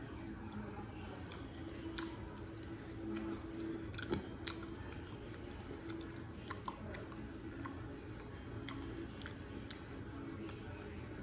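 A person chewing soft food close to the microphone, with wet mouth noises and scattered sharp clicks; the loudest clicks come about two and four seconds in.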